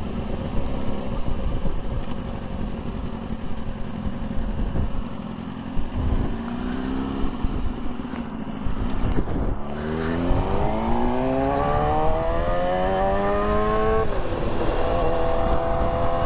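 Sport motorcycle engine heard from on the bike while riding. It holds a steady drone at first, then climbs in pitch as it accelerates. About ten seconds in it pulls up hard for about four seconds, then its pitch drops at a gear change and holds steady.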